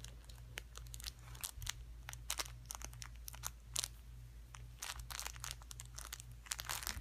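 Kittens playing at close range: an irregular run of crinkly scratching and clicking noises, some sharper than others, with no steady rhythm.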